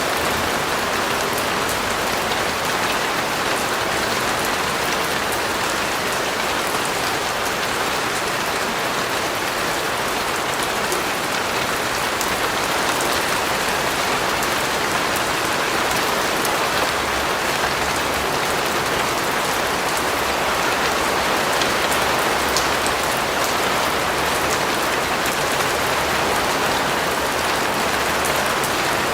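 Steady rain falling, an even dense hiss with scattered drops pattering on a surface.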